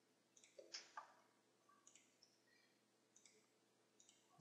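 Near silence with a few faint, scattered clicks of a computer mouse and keyboard keys.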